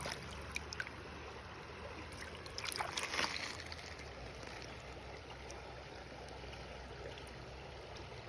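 Creek water running steadily, with a few sharp clicks and a short cluster of clicks and scraping, like stones being handled, about three seconds in.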